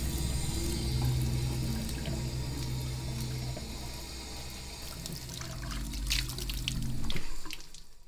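Water running from a faucet into a utility sink, with a low steady hum underneath; it stops suddenly near the end.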